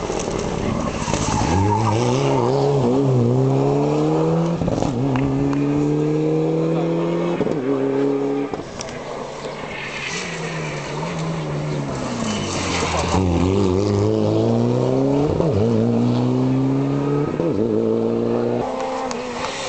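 Rally car engine at full throttle, its note climbing and dropping back at each upshift, easing off and falling in pitch about eight seconds in, then climbing through the gears again.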